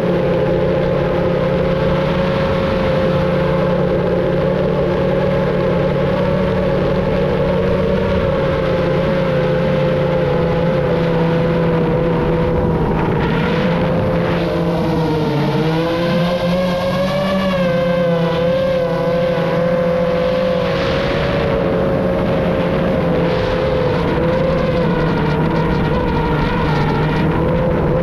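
FPV drone's electric motors and propellers whining steadily, the pitch wavering and dipping as the throttle changes midway, over loud wind rush.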